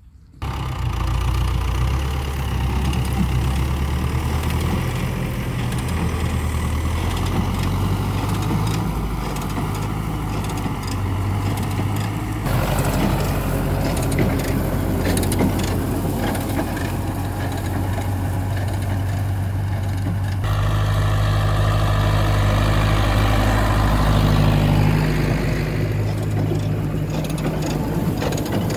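Farm tractor's diesel engine running steadily, with the noise of a PTO-driven manure spreader at work throwing out manure. The engine note changes abruptly twice.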